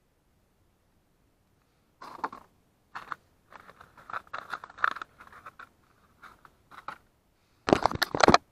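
Hands handling a cardboard box and plastic packaging: a string of short rustles and scrapes, with a louder burst of handling and rustling near the end.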